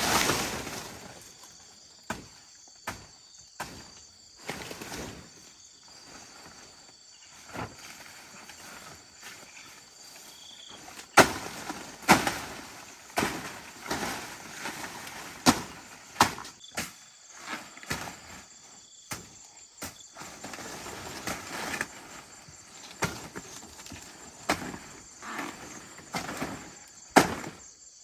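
A series of sharp knocks or strikes, a few scattered in the first half, then about one a second through the second half, over a steady high buzz of insects.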